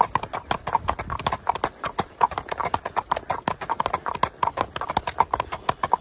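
A horse's hooves clip-clopping on an asphalt road as it is ridden along at a steady gait, a quick, even run of several hoofbeats a second.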